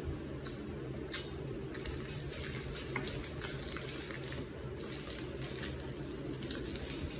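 Candy being chewed: irregular wet clicks and smacks of a mouth working on chewy sweets, over a steady low hum.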